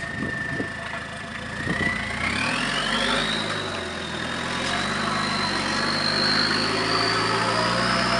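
Toyota Land Cruiser LJ73's 2.4-litre turbo-diesel engine working under load as the truck crawls over logs, the revs rising about two seconds in, with a high whine that climbs in pitch along with them.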